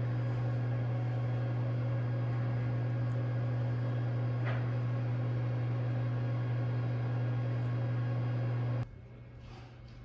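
A machine's steady, low electrical hum, unchanging, with a faint tick about halfway through, stopping abruptly about nine seconds in.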